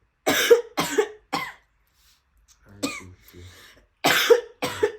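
A person coughing hard in short, harsh fits: three coughs in quick succession, a weaker one in the middle, and two more loud ones near the end. The coughing is a deliberate, faked fit for a prank.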